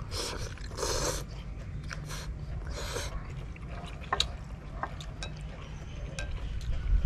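A man slurping instant noodles, several short slurps in the first three seconds. After that come a few light clicks of chopsticks against the bowl.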